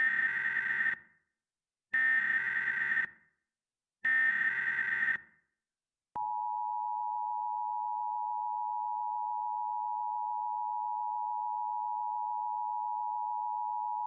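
Emergency Alert System tones opening a new alert: three short bursts of SAME digital header data, each about a second long and two seconds apart, then the two-tone attention signal held steady for about eight seconds before it cuts off.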